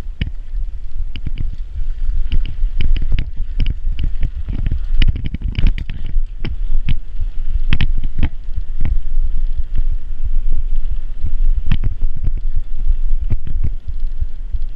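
A bicycle ridden over rough dirt, heard as a heavy low rumble of wind buffeting the microphone, with many sharp knocks and rattles from the bumps.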